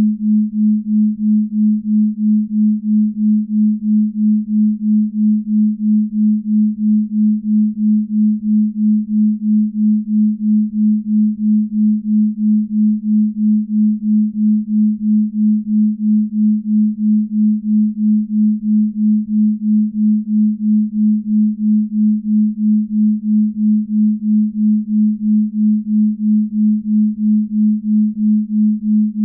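Binaural beat: a single low, pure sine-like tone held steadily, its loudness pulsing evenly a little over twice a second.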